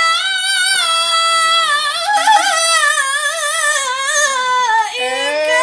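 A child's voice chanting the Quran in melodic tajweed style, drawing out the word "tanazzalu" in one long wavering melisma full of pitch ornaments, with a brief break about five seconds in before the next phrase begins.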